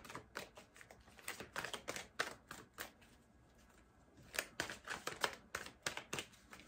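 A deck of tarot cards being shuffled by hand: quick, irregular card flicks and slaps, with a short pause midway before the shuffling picks up again.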